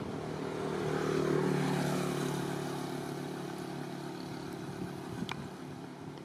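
A motor vehicle's engine passing along the road, growing to its loudest a second or two in and then slowly fading. A short click about five seconds in.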